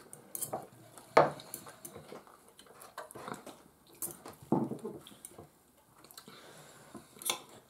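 Metal knives and forks clinking and scraping on ceramic dinner plates, with scattered sharp clinks, the loudest about a second in.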